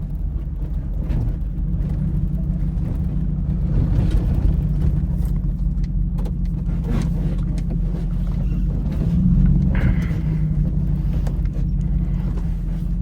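Third-generation Dodge Ram's Hemi V8 running at low speed over a rough dirt trail, heard from inside the cab, with clunks and rattles from the truck jolting over bumps. The engine revs up briefly about nine seconds in.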